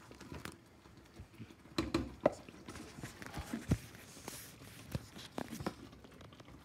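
Spatula stirring and scraping a thick, cooking play-dough mixture in a small saucepan: irregular scrapes and soft knocks of the blade against the pan, the loudest about two seconds in and again near four seconds.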